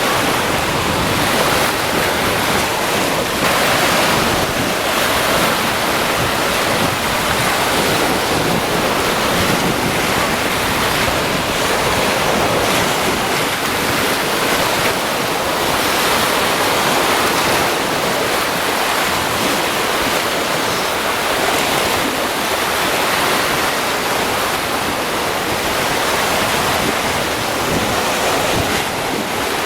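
Caspian Sea waves breaking and washing onto the shore: a steady rushing surf that swells a little now and then.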